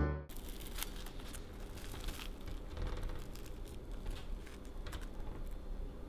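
Waffle-iron-toasted Mont Cher chocolate-cream cake sandwich being torn apart by hand: faint, scattered crackles and soft tearing of the crisp crust.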